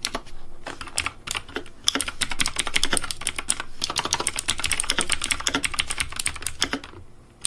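Rapid typing on a computer keyboard: a dense, irregular clatter of keystrokes that pauses briefly near the end.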